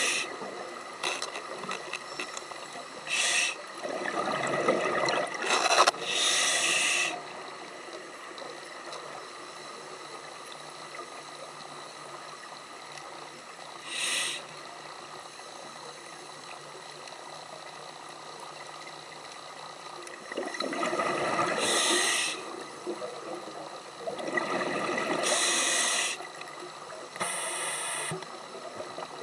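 Scuba diver breathing through a regulator underwater: several spaced breaths, hissing inhalations and bubbling exhalations. Between them, from about eight to twenty seconds in, there is only a steady faint hiss, broken once by a short breath sound.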